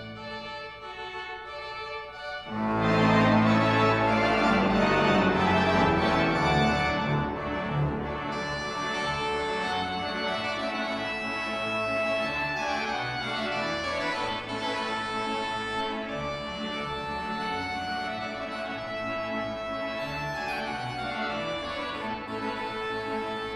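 Pipe organ playing a piece. A loud full chord enters about two and a half seconds in, and the sustained playing settles somewhat softer after about eight seconds.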